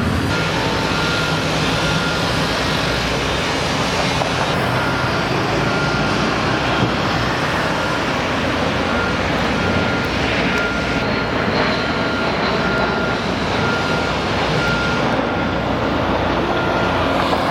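A construction vehicle's reversing alarm beeping about once a second over steady, loud traffic and machinery noise.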